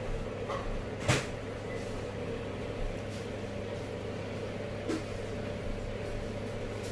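A sharp knock about a second in and a fainter one near five seconds, over a steady low hum.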